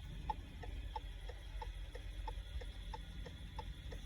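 2015 Subaru Outback's hazard-light flasher ticking steadily, about three ticks a second, alternating between a higher and a lower tick as the lights go on and off.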